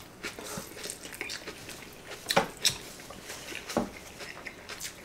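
A person chewing a mouthful of bánh hỏi with crispy roast pork, with scattered short crunches and mouth clicks, the strongest about two and a half and four seconds in.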